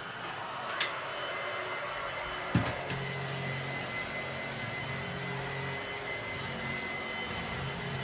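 Tineco Pure ONE S11 cordless stick vacuum running with a steady motor whine. A sharp click comes about a second in and a knock at about two and a half seconds, and after that a low hum joins the motor sound.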